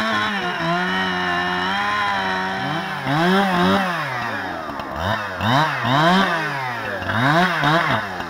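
Gas chainsaw cutting into a fallen tree trunk. It runs at a steady high pitch, then from a few seconds in revs up and down over and over.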